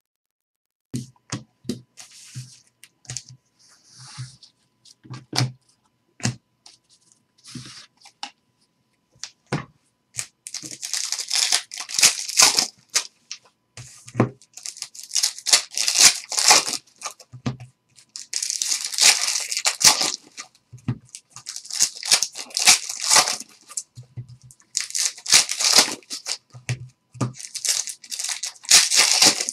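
Trading cards being handled and tapped against a tabletop. From about ten seconds in, this turns into repeated bursts of crinkling and tearing from foil card-pack wrappers being ripped open, with cards sliding through the hands.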